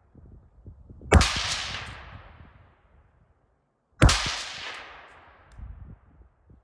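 Two rifle shots from a 5.56 carbine, about three seconds apart, each followed by an echo that fades out over a second or two. This is slow aimed fire, shooting a group to zero the rifle at 50 yards.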